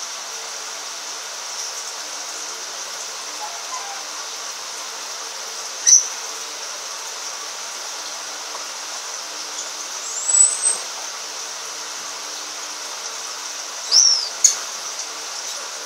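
Eye-ring lovebird giving short, shrill chirps: one about six seconds in, another around ten seconds, and two close together near the end, over a steady high hiss.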